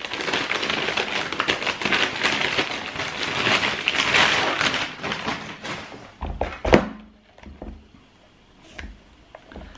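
Paper rustling and crinkling as a pair of trainers is unwrapped from its shoebox, then a single thud a little after six seconds in, followed by a few faint light taps.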